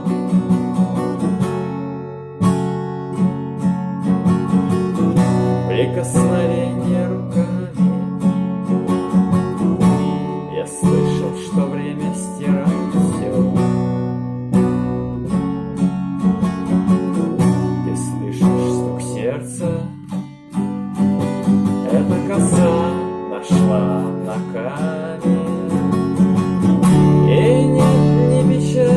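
Instrumental passage of a song: acoustic guitar strummed in a steady rhythm, without vocals.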